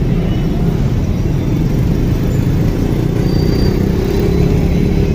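Close street traffic: the engines of a diesel coach bus, auto rickshaws and cars running together as a steady low rumble.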